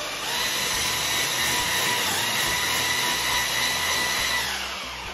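Electric hand blender with a whisk attachment whipping cream cheese and sour cream frosting in a stainless steel bowl. The motor runs with a steady whine, picks up slightly about a third of a second in, then winds down and stops near the end.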